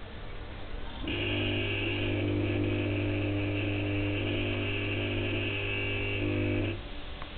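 Philips SON-H 210 W high-pressure sodium lamp and its ballast humming loudly with a mains buzz. The hum starts suddenly about a second in and cuts off abruptly near the end: the lamp strikes and then drops out, the cycling during warm-up that is typical of these retrofit lamps.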